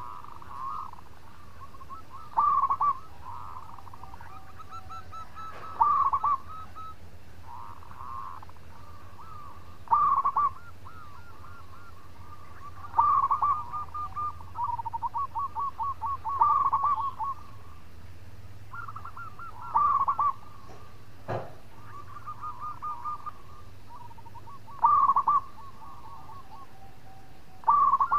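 Zebra dove (perkutut) singing: a loud burst of rapid coos repeated about every three to four seconds, with softer rolling coos between the bursts. A steady low hum runs underneath, and there is one sharp click about two-thirds of the way through.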